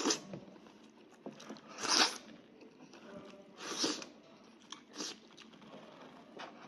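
Close-up eating sounds of a person biting and chewing meat from a sheep's head, with four louder, noisy bite or slurp sounds about every one to two seconds among smaller clicks.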